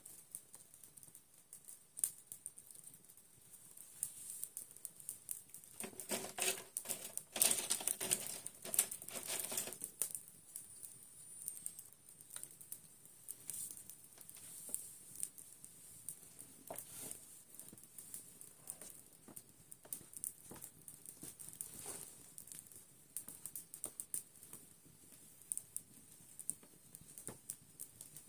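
Irregular light clicks and taps, with a busier stretch of tapping and rustling about six to ten seconds in.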